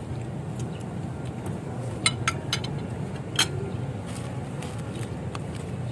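Cutlery clinking against a plate in a few sharp clicks, the loudest about two seconds and three and a half seconds in, over a steady low background hum.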